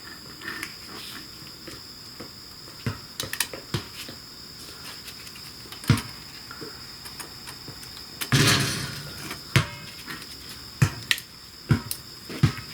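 Hand tools working on motorcycle shift linkage: scattered sharp metal clicks and knocks as a fastener is loosened, with one louder scraping rattle lasting under a second about eight seconds in.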